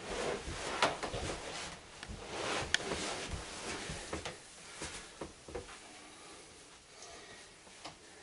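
Rustling of clothing and sofa cushions with scattered light knocks and clicks as a patient lying on a sofa is rolled onto her other side and her hips and legs are worked by hand. One sharp click comes just under three seconds in, and the handling grows quieter in the second half.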